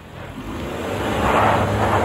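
Suzuki Jimny's engine pulling steadily in first gear, low-range four-wheel drive, as it crawls through a sandy rut, growing louder about a second in as it comes closer. Wind noise on the microphone runs over it.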